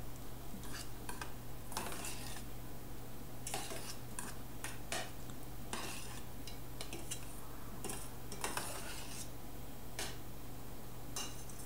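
Metal fork stirring cooked jasmine rice in a stainless steel saucepan, scraping and clinking against the pan in irregular strokes.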